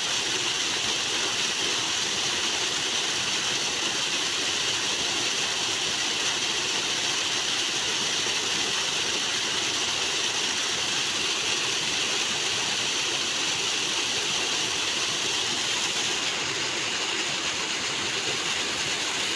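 Flowing water rushing in a loud, steady stream with no change in strength.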